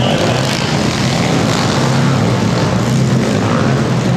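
Several pit bike engines racing together at high revs, a continuous overlapping engine noise from the pack of bikes, echoing in an enclosed hall.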